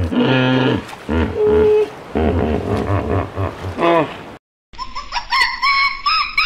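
Hippopotamus giving a series of deep grunting calls, which stop abruptly about four seconds in. After a brief gap, a rapid run of short, higher-pitched calls begins.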